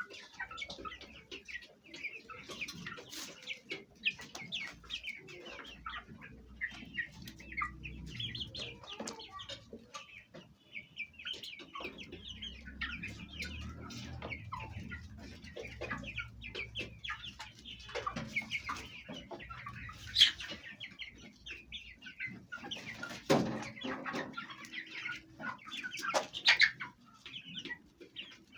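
Fayumi hens clucking while their young chicks peep continuously in many short, high calls, with a few louder calls in the second half.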